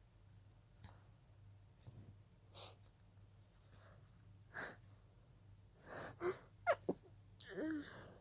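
A person's pollen-allergy sneezing fit: a string of short breathy intakes of breath, building about six seconds in to quick, sharp, voiced gasps and stifled, breathy sneezes near the end.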